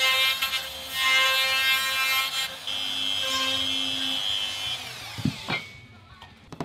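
A power tool's motor running at a steady pitch on wood, then gliding down in pitch and fading out about five seconds in as it winds down, followed by a couple of short knocks.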